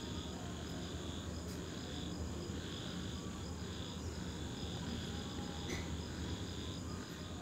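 Crickets chirping in repeated high-pitched trills of about half a second to a second with short gaps, over a low steady hum.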